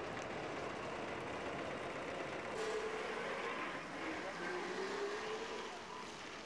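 Steady noise of running vehicle engines, with a faint wavering tone from about three to five and a half seconds in.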